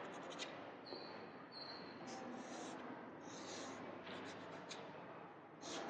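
Chalk scraping faintly on a blackboard in short drawing strokes, with a thin high squeak about a second in.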